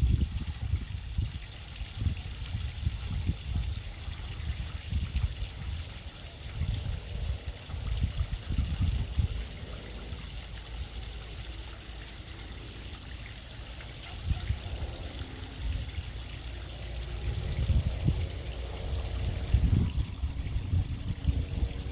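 Falling water splashing with a steady hiss, with a low rumble that swells and fades now and then.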